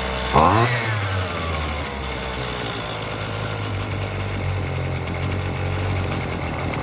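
Husqvarna string trimmer's small two-stroke engine revved up sharply about half a second in, then winding back down and running steadily at idle.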